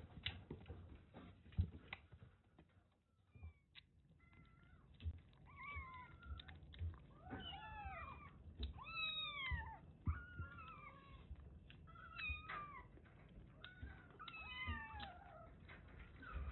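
Kittens mewing over and over in short, high calls that rise and fall, during feeding time. Soft clicks and knocks come before and under the mewing.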